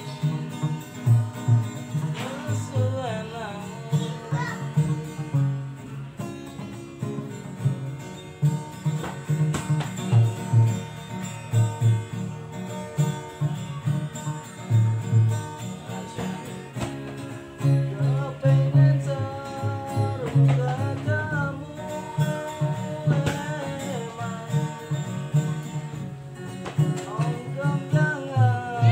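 Live Banyuwangi-style song played on makeshift instruments: a plucked, strummed guitar over a steady low beat, with a voice singing in places.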